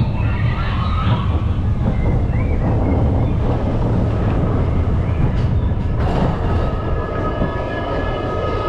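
Vekoma roller coaster train rumbling along its steel track. About six seconds in, a steady whining hum joins the rumble as the train climbs the chain lift hill.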